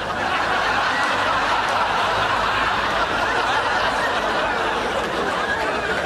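Studio audience laughing: a sustained swell of crowd laughter that rises in at the start and holds steady.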